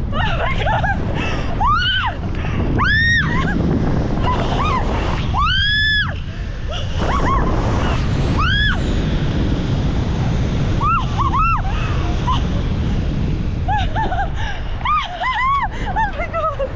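Wind buffeting the microphone in paragliding flight, with a woman's high-pitched shrieks over it, each rising and then falling in pitch. There are four or five long shrieks in the first nine seconds and shorter, quicker squeals later on.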